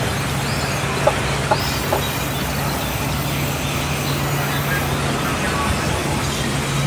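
Sawmill band saw running and cutting lengthwise through a wooden slab: a steady motor hum under dense sawing noise, with three short clicks between one and two seconds in.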